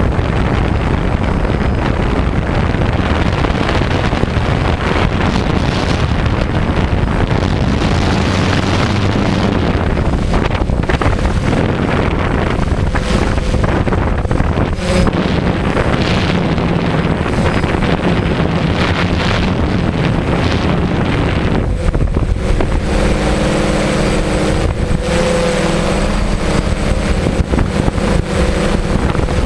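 DJI quadcopter's motors and propellers whirring, heard through the camera it carries, with wind rushing over the microphone. From about 22 seconds in, steady motor tones stand out and shift slightly in pitch.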